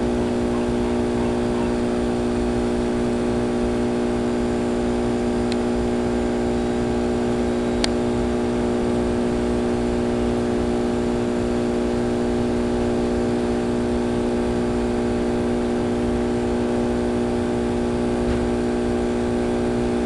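A steady machine hum at one unchanging pitch, with a couple of faint ticks partway through.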